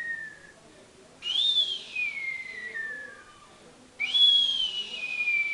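A man imitating a hawk's cry: long, high, whistle-like calls that slide downward in pitch. The tail of one call fades just after the start, a second begins about a second in with a short upward flick before falling, and a third starts about four seconds in.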